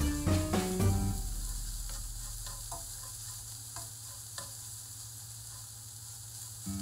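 Flaked crab meat sizzling in a nonstick frying pan as a silicone spatula stirs it, with a steady high hiss and a few light taps of the spatula on the pan. Background music fades out about a second in.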